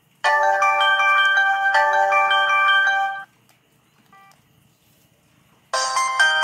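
Samsung ringtones played through a ZTE Z222 phone's speaker. A chiming melody plays its phrase twice and stops about three seconds in, a faint short beep follows, and a different, brighter ringtone starts near the end.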